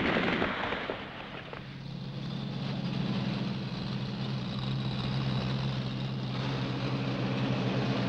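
Truck engine running steadily, a low even drone that sets in about a second in and holds, after a louder noisy passage fades out.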